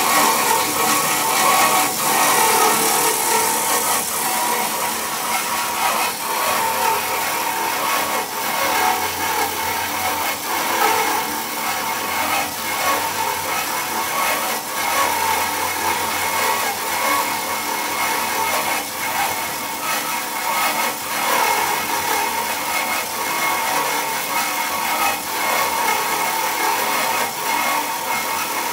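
Meba 335DG metal-cutting band saw running: a steady machine hum and blade noise, with faint irregular ticks.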